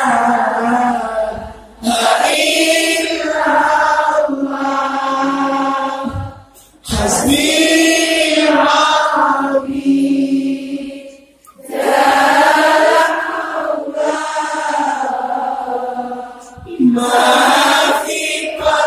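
Sholawat (Islamic devotional chant) led by a man's voice over a microphone, with a large crowd singing along in unison. It moves in long drawn-out phrases, with a short breath between them about every five seconds.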